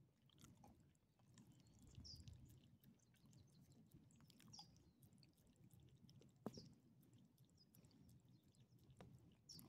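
Faint licking and chewing of a small dog eating a soft bit of corn dog from a person's palm: quiet wet smacks and clicks, with one sharper click about six and a half seconds in.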